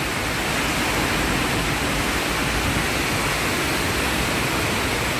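Heavy rain pouring down, a steady even hiss.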